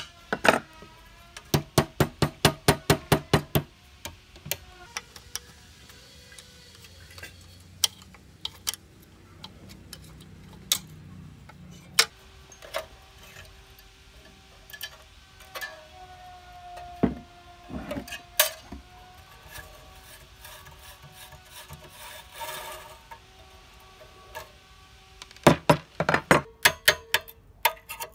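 Hammer driving a steel punch against a rusty Honda GX160 engine, in quick runs of ringing metal strikes, about four or five a second, near the start and again near the end. Between the runs come scattered single knocks and quieter scraping and handling of the parts.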